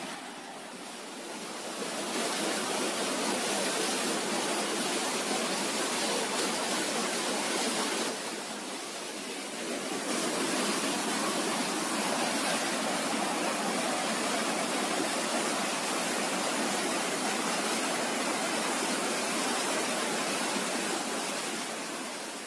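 Waterfall rushing: a steady hiss of falling water that dips in level briefly near the start and again about eight seconds in.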